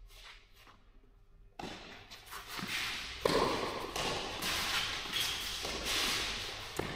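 Tennis ball struck by rackets and bouncing during a doubles rally, with players' shoes scuffing on the clay court. A few sharp hits stand out, the loudest about three seconds in.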